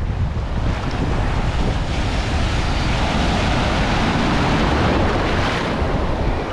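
Sea surf heard at water level: waves rushing and breaking into churning whitewater, with a heavy low rumble of wind and water on the microphone. A wave breaks close by around the middle and the rush is louder for a couple of seconds.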